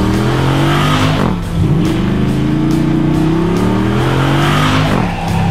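Pickup truck engine accelerating: the revs climb, drop at a gear change about a second and a half in, then climb again for several seconds before dropping near the end.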